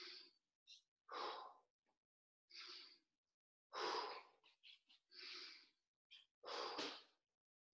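A man's heavy breathing while holding a squat: about six deep, audible breaths, roughly one every second and a half, from the effort of the exercise.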